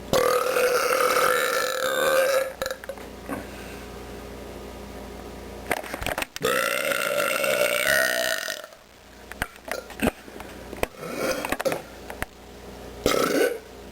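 A person belching: two long, loud drawn-out burps of about two seconds each, the first at the very start and the second about six and a half seconds in, then a few shorter, quieter sounds near the end.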